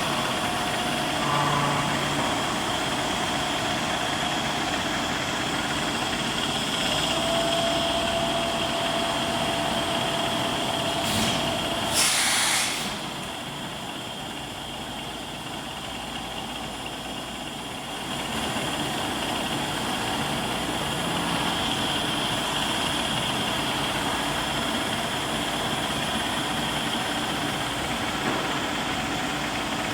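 Workshop machinery running with a steady hum and a constant high whine. About twelve seconds in there is a short loud hiss. The sound is quieter for several seconds, then picks up again.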